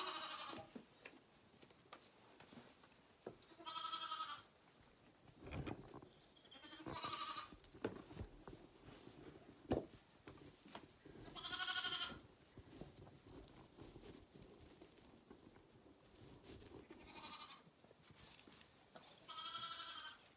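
A Zwartbles lamb bleating, five high calls spaced a few seconds apart, after it has been cut off at its allotted bottle of milk. A single sharp knock comes about ten seconds in.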